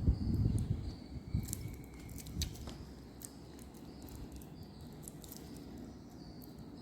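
Handling of a metal wristwatch with a stainless steel bracelet: soft thumps at first, then a few light metallic clicks and clinks of the bracelet. Faint high chirps repeat in the background throughout.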